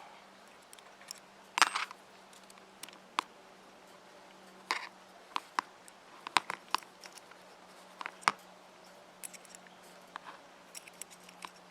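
Scattered sharp clicks and metallic taps of hand tools against the small metal parts of an OS FSa-110 model glow engine as a cover is worked loose, over a faint steady low hum.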